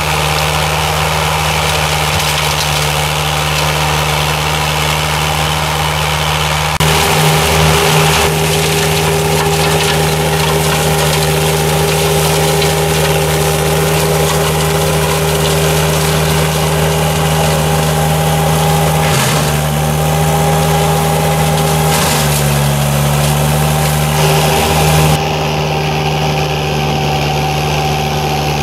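Berti E-Trail remote-controlled tracked flail mulcher running with a steady engine drone. The pitch and tone shift suddenly a few times where the footage cuts between shots.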